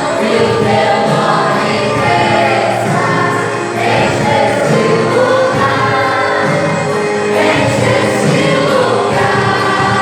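Church worship band and singers performing a gospel song: several voices singing together over steady instrumental accompaniment with a regular beat.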